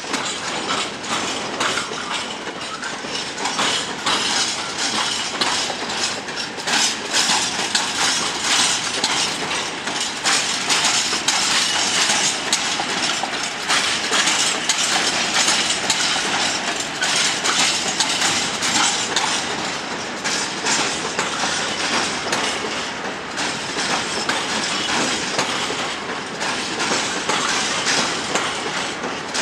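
Freight train of open wagons rolling past, the steel wheels clattering over rail joints in a continuous stream of clicks over a steady rumble.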